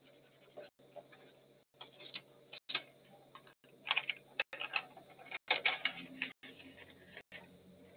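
Paper being peeled off a freshly inked printing block, with quiet crackling and rustling as the sheet pulls away from the tacky ink. The sheet is then set down. The crackle is busiest about halfway through.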